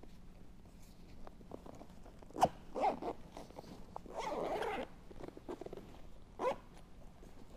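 Industrial-grade zipper on a rooftop tent's cover being pulled along in short runs: brief rasps about two and a half and three seconds in, a longer zip of nearly a second around four seconds in, and another short one near the end.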